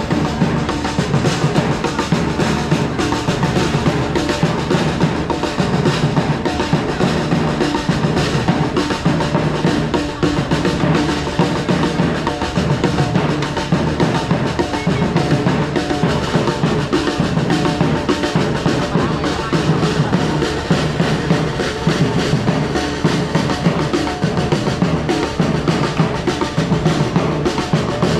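Music with continuous, dense drumming, the drums beating steadily without a break.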